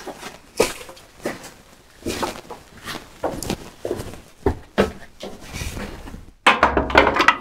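Footsteps and scattered knocks as a heavy metal shaper fence is carried over to the machine. Near the end comes a louder clunk and scrape as it is set down onto the shaper table.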